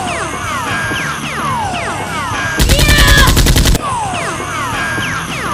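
Dubbed gunfire sound effects: many overlapping falling whistles, and from about two and a half seconds in, a loud burst of rapid automatic fire at about ten shots a second that lasts just over a second.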